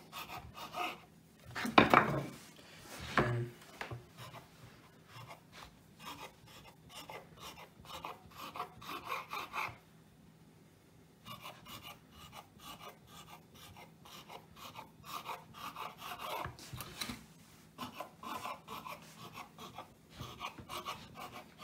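A kitchen knife cutting through soft scone dough and scraping against a wooden chopping board: a series of short scrapes, with the two loudest strokes about two and three seconds in and a brief pause around the middle.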